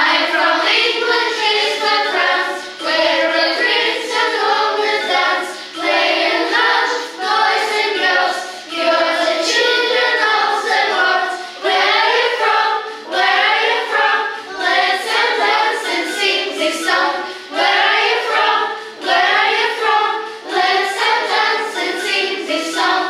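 A group of children singing a song together, line by line with short breaks between the phrases.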